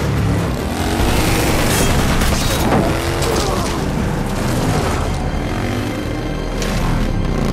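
Action-film soundtrack: score music over the running engines of a motorcycle and chase vehicles, with a loud noisy crash-like burst in the first half and sliding engine pitches after it.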